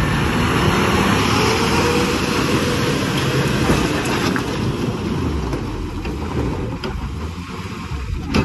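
Diesel engine of a Tata 2518 truck stuck in mud running with a steady rumble, easing off a little in the second half.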